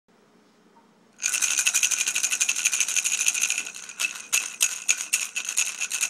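A hand rattle with a round head, shaken rapidly and steadily, starting about a second in. The shaking eases briefly about halfway through, then picks up again in sharper strokes.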